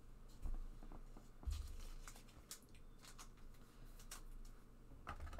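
Soft rustling and clicking from trading cards and their plastic holders being handled, with two dull low bumps on the table about half a second and a second and a half in.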